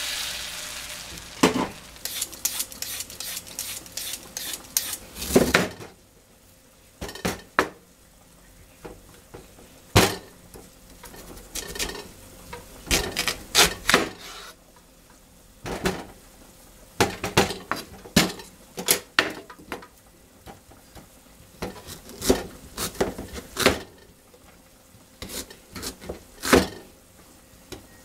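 Water poured into a hot frying pan of browned meat hisses and sizzles, fading over the first few seconds. Then a broad-bladed kitchen knife cuts through daikon radish, knocking on a wooden cutting board in scattered, irregular strokes.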